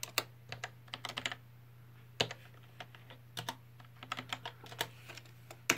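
Computer keyboard keys clicking irregularly, single presses and short runs, over a steady low hum.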